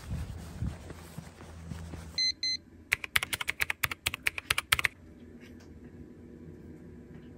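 Two short beeps, then rapid typing on a laptop keyboard for about two seconds, followed by a few light scattered key or trackpad taps.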